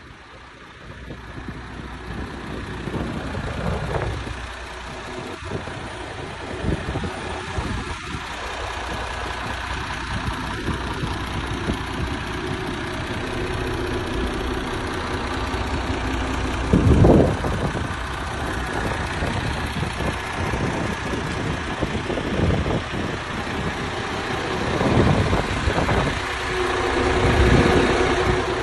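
MAN TGX truck's diesel engine idling steadily, with one brief louder swell about halfway through.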